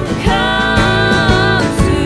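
Background music with a sung melody line over a steady beat and bass.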